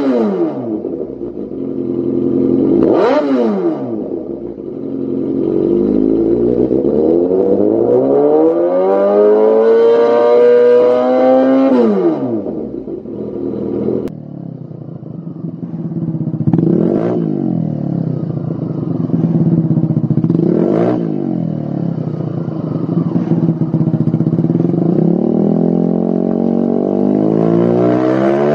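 Kawasaki Z800 inline-four through a Lextek CP8C carbon slip-on exhaust, revved on a stationary bike: two quick blips, then a long rev held for several seconds before it falls back to idle. After a short break about halfway, an engine idles with two sharp blips and a longer rev near the end.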